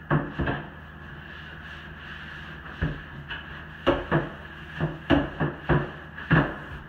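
Long-handled scrub brush scraping and knocking against a shower wall in short, irregular strokes: two at the start, one near the middle, then a quicker run toward the end. A steady hum sounds underneath.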